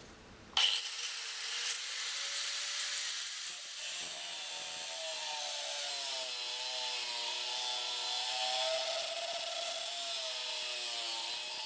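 Black & Decker 115 mm angle grinder with a thin cutting disc starting suddenly about half a second in and cutting through steel threaded rod: a loud, steady hissing grind over a motor whine whose pitch wavers as the disc is loaded.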